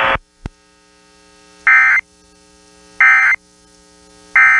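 Emergency Alert System end-of-message data tones from NOAA weather radio: three short bursts of buzzy digital warbling, about 1.3 seconds apart, marking the end of the test message. A faint steady hum runs underneath.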